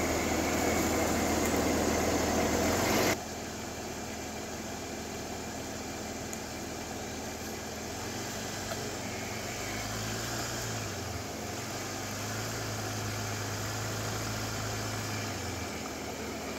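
A Jeep's engine running at low revs as it crawls over rock ledges. It is louder for the first three seconds, then drops abruptly to a quieter hum that rises a little in pitch about halfway through and holds.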